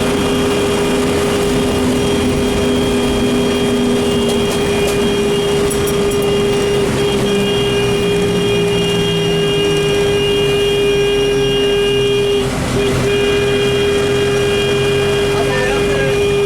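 Public bus driving in heavy rain: the engine runs with its pitch shifting, under a steady hiss of rain and road noise. A steady high-pitched tone is held almost throughout and breaks off briefly about twelve seconds in.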